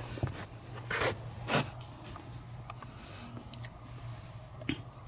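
A chorus of night insects trilling steadily on one high pitch, with a few brief soft knocks about a second in and near the end.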